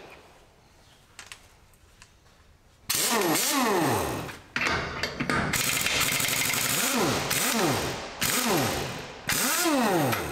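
Pneumatic 1-inch-drive impact wrench removing the lug nuts of a grain trailer wheel. After about three quiet seconds it fires in several bursts; at the end of each burst the air motor's pitch falls away as the trigger is let go.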